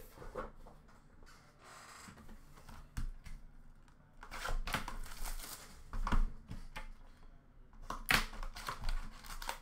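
A foil trading-card pack wrapper being slit and torn open by hand, with irregular crinkling and sharp clicks. The handling comes in spells, busiest around the middle and again near the end.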